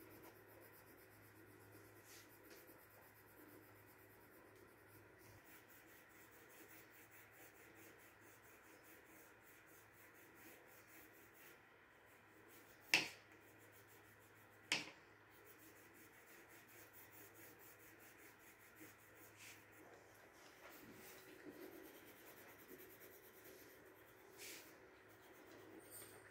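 Faint scratching of colored pencil and crayon on paper, with two sharp clicks about a second and a half apart near the middle.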